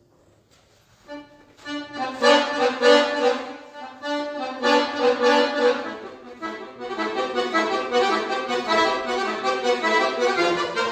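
Solo accordion (bayan) playing. After a brief pause, loud accented chords come in about two seconds in and are repeated, and from about seven seconds a faster, busier run of notes follows.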